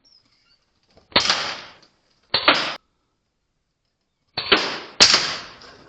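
Four sharp cracks of a pre-charged pneumatic air rifle firing in a barn, each tailing off quickly; the last two come about half a second apart.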